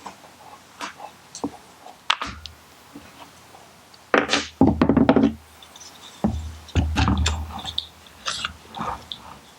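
Scattered knocks and metallic taps as the trigger housing pins are driven out of a Remington 870 shotgun, with the louder knocks about four and seven seconds in.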